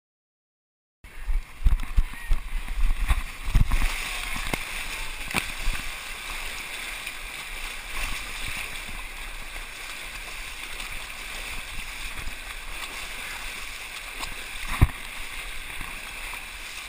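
Wading through a thick mud pit: muddy water sloshing and splashing around the body. There are heavy irregular thumps in the first few seconds after the sound cuts in about a second in, and one sharp knock near the end.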